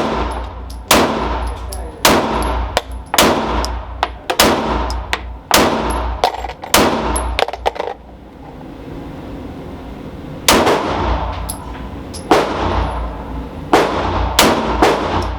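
Glock 19 9 mm pistol fired in quick strings, about twenty shots, each with a short echo, at roughly half-second to one-second spacing. A pause of about two seconds falls just past the middle.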